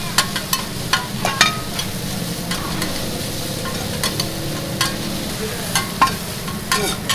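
Pad thai noodles stir-frying in a large shallow metal pan: a steady sizzle, with the metal spatula clanking and scraping against the pan in irregular sharp knocks.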